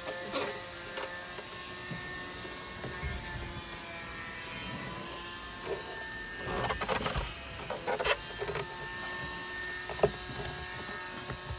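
A camper table top knocking and rattling against its door-mounted brackets and the door panel as it is offered up, with a cluster of knocks about two thirds of the way through and a sharp click near the end. A steady electrical hum runs underneath.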